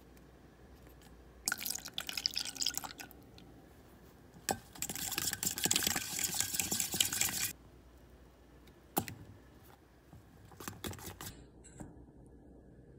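Whisk beating a wet batter of egg, sugar, milk and flour in a stainless steel bowl, with rapid wet slapping and metal clicks. It comes in two spells, a short one about a second and a half in and a longer, louder one from about four and a half seconds. A few single scrapes and taps follow near the end.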